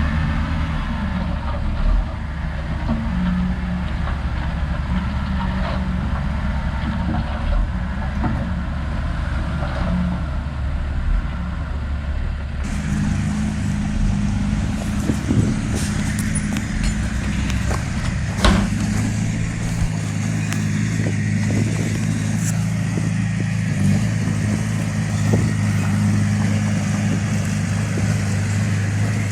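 Heavy diesel machinery engine running steadily, its note shifting abruptly about twelve seconds in, with a few sharp metallic knocks a little past the middle.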